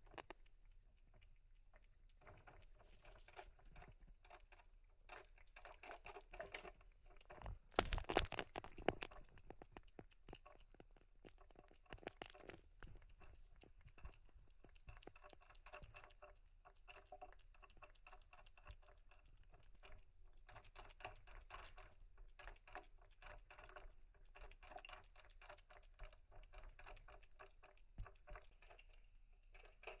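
A cat licking at the metal nozzle of a pet water bottle to drink, giving faint, quick, rhythmic licking clicks in bouts, with a louder clatter about eight seconds in.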